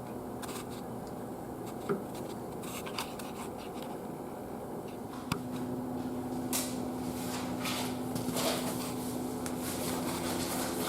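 Small handling sounds of a plastic butt fusion welding machine: scattered light knocks, clicks and rubbing against a steady low hum, which grows louder after a click about halfway through while the weld is held under pressure to cool.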